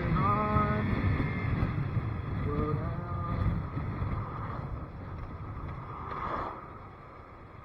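Low, rumbling wind and road noise while riding. It fades gradually and drops away about six and a half seconds in, with a couple of brief pitched sounds in the first few seconds.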